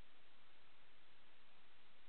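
Steady, even hiss of static with nothing else in it: the empty audio channel of an analog FPV drone video recording.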